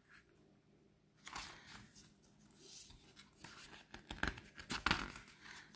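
Paper pages of a book being turned and rubbed by fingers, with soft irregular rustles and flaps as pages that stick together are pried apart. The rustling starts about a second in and grows louder near the end.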